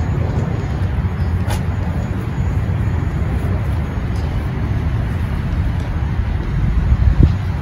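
Steady, low rumbling outdoor background noise, with a faint click about a second and a half in and a short low thump near the end.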